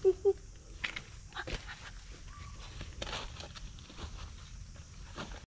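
Two short, sharp animal calls right at the start, then a person's footfalls and rustling in dry leaf litter and undergrowth.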